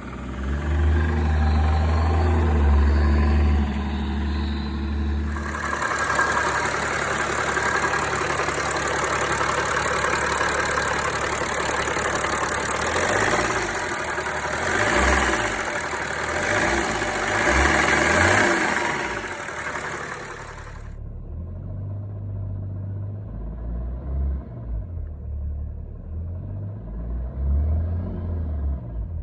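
BMW 335d's M57 twin-turbo inline-six diesel running, with the ticking, knock-like noise that was traced to a failing AC compressor rather than a rod knock. From about five seconds in the sound is louder and noisier. It drops back to a lower, uneven engine note at about twenty-one seconds.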